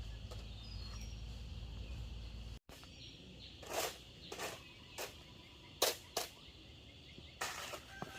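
Rural outdoor ambience: a steady low hum with a few short bird chirps, then, after an abrupt cut, about half a dozen irregular knocks and scrapes.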